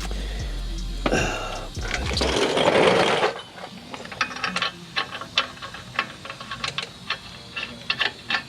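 A power tool runs for about two seconds, starting about a second in, as a bolt is driven in. It is followed by a scatter of light metallic clicks and taps from tools and parts being handled.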